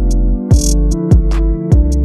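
Background electronic music with a deep bass kick about twice a second, quick high ticks, and held chords.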